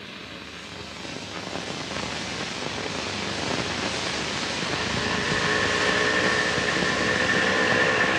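Several Yamaha motorcycle engines approaching, their drone getting steadily louder, with a steady whine joining in about halfway through.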